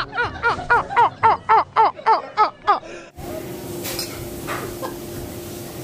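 Hard, high-pitched laughter in a fast run of ha-ha pulses, about four a second, that cuts off abruptly about three seconds in; after it, a quieter room with a steady hum.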